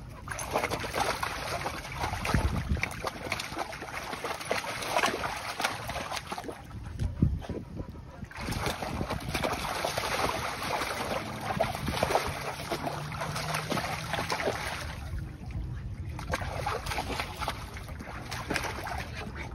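Water splashing and sloshing as dogs wade and thrash in a plastic wading pool, in long stretches broken by two short lulls, about a third of the way through and about three-quarters through.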